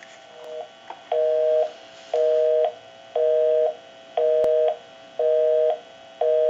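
Telephone busy signal played through a test bench amplifier: a two-tone beep about half a second long, repeating once a second. It starts about a second in and shows that the called line is busy. A single sharp click sounds midway.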